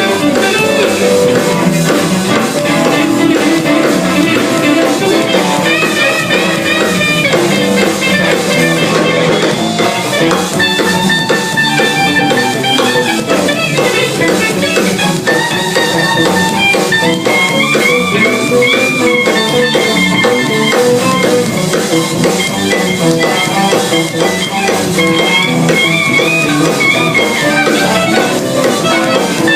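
Live band jamming: a guitar plays wavering melodic lines over a drum kit, loud and steady throughout.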